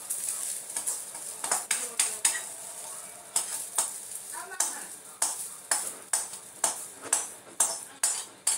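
Food sizzling in a pan on a gas stove while a utensil stirs it, knocking and scraping against the pan about twice a second.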